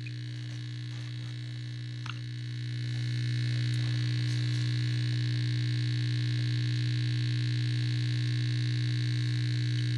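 Sharp SG-618 surface grinder running, its electric motors giving a steady hum with a thin high whine, getting a little louder about three seconds in.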